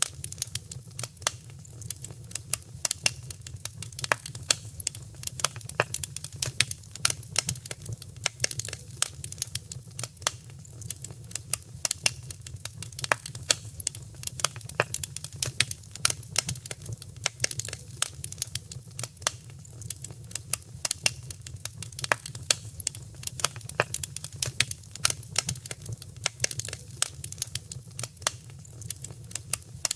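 Wood fire crackling in a fireplace: many sharp, irregular pops and snaps, several a second, over a steady low rumble of the flames.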